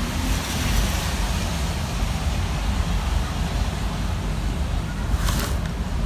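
Gusty wind from an approaching typhoon howling through a window gap: a steady rushing with a heavy low rumble of wind buffeting the microphone. A brief rustle comes near the end.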